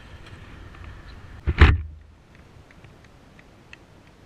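Low rumble of a motorcycle ride, engine and wind, broken about one and a half seconds in by one sudden loud thump. After the thump it drops to a quieter background with faint scattered ticks.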